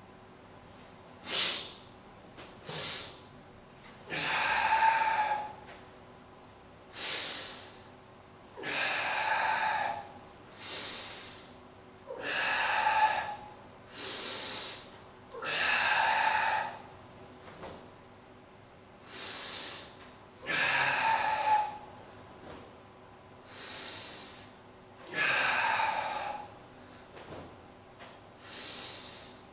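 A man breathing forcefully in a steady rhythm. Long, loud breaths alternate with shorter, quieter ones, about eight cycles in all.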